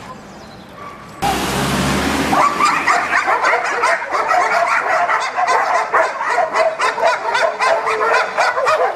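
Dog barking and yipping rapidly in a dense, continuous stream of short high calls. It begins after a one-second burst of harsh noise about a second in.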